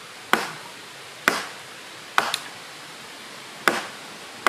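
Wooden mallet knocking on timber poles: five sharp strikes about a second apart.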